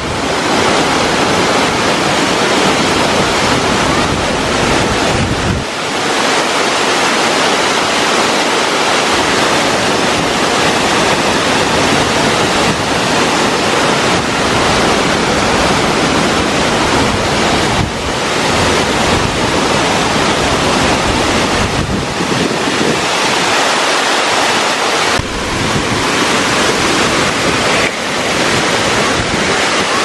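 Waterfall: a loud, steady rush of falling water, with the deepest rumble swelling and dropping back now and then.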